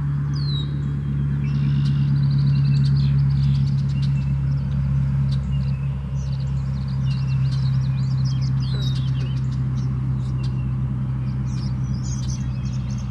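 A steady low engine hum, like a nearby vehicle running, dominates. Small birds chirp and trill over it in short high calls throughout.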